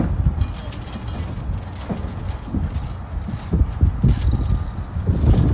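Wind buffeting the microphone in gusts, with a faint high metallic jingling from about half a second in until near the end.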